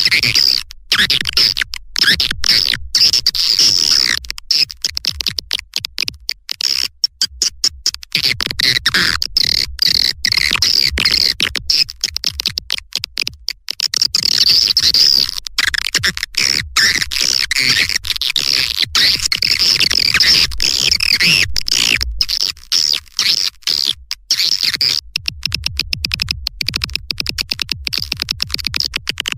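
Swiftlet call-sound lure track: a dense, rapid, high-pitched twittering and chirping of many swiftlets, with short breaks throughout. It is the recorded and edited kind of call played from swiftlet houses to draw birds in to nest.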